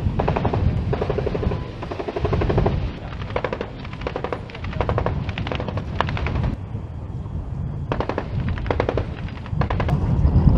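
Repeated bursts of rapid automatic gunfire, each lasting from half a second to about two seconds, over a continuous low rumble; the firing pauses for a moment past the middle and then resumes.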